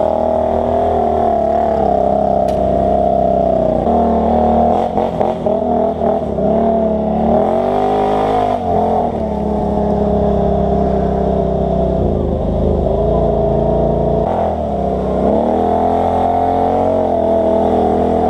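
ATV engine running hard on a trail. Its pitch dips and climbs back several times as the throttle is eased off and opened again.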